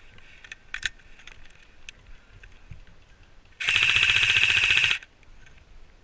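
Airsoft electric rifle, a Krytac CRB, firing one full-auto burst of about a second and a half, a fast even rattle of shots. Before it, near the start, come a couple of sharp clicks.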